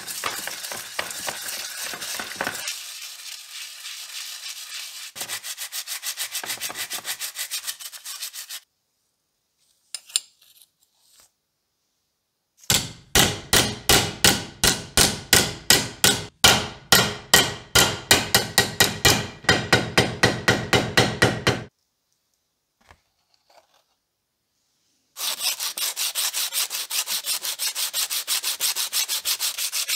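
Small metal coin-mechanism parts scrubbed in a bowl of soapy water. After a pause, a plastic-faced mallet knocks dents out of a thin aluminium flap, about three blows a second for some nine seconds. Last, the aluminium flap is rubbed back and forth on sandpaper.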